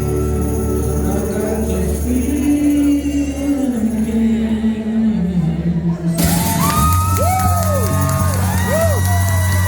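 Live acoustic band music with held chords and some singing, then from about six seconds in the audience cheering and whooping over a steady low note.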